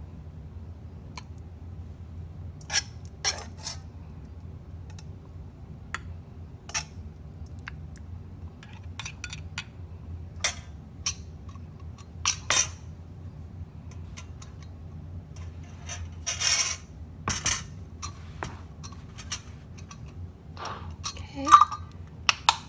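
Scattered clinks and scrapes of a spoon against a glass jar and pan as cooked ground chicken is spooned into the jar for storage, over a low steady hum. The loudest clink comes near the end.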